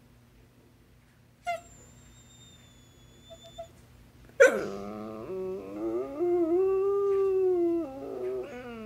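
Basset hound howling: a sharp yelp about four and a half seconds in, then a long howl that rises and falls in pitch for about three seconds, and a shorter wavering howl near the end.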